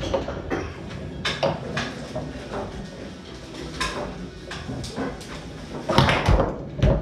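Foosball being played on a Tornado table: a series of sharp, irregular knocks as the ball is struck by the plastic men and the rods slam. The loudest knocks come close together about six and seven seconds in.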